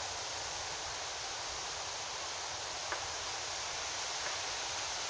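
Strong wind blowing through leaves, a steady rushing hiss.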